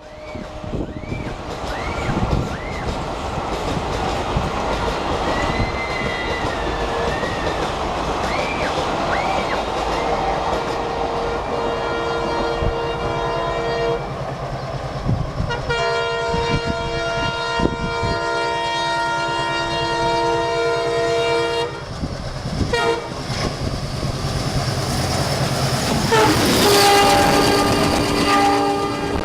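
WDM-3B ALCO diesel-electric locomotive coming down the line at full notch, its engine chugging under the rumble of the train. In the second half it sounds its multi-tone horn in several long blasts, the last near the end being the loudest.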